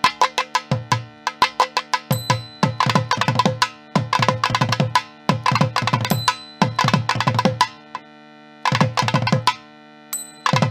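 Hand-drum music: quick phrases of sharp strokes mixed with deep, pitched bass strokes, broken by short pauses, over a steady held drone.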